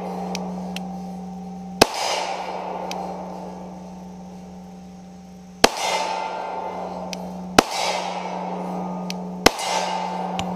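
Four shots from a Gen 3 Glock 30 .45 ACP pistol, spaced two to four seconds apart. Each shot is followed by a long ringing tone from a steel silhouette target being struck.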